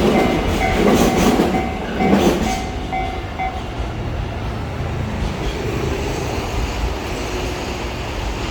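Container freight wagons clattering over the rails at a level crossing while the crossing's electronic alarm rings at about two beeps a second. The wheel clatter fades about two and a half seconds in, and the alarm stops about a second later, once the train has cleared. A steady low rumble of traffic remains.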